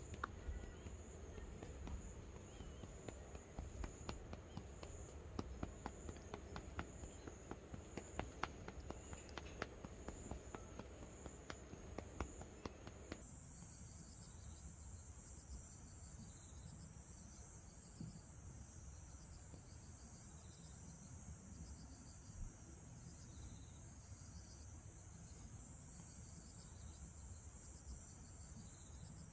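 Faint outdoor insect chorus, a steady high trill throughout, with short clicks and rustles during the first half. About 13 seconds in, the trill shifts and a second insect's pulsing call starts, repeating every second or so.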